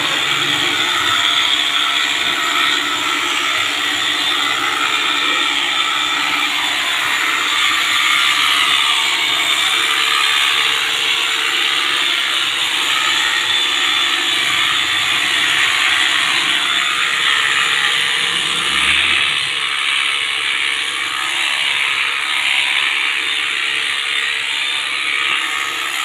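Corded electric animal clippers running steadily with a continuous buzz as they shear a goat's coat.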